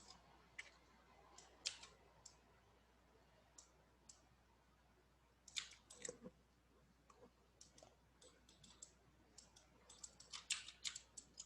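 Faint, scattered clicks of a computer mouse and keyboard, with a quick run of clicks about halfway through and another near the end.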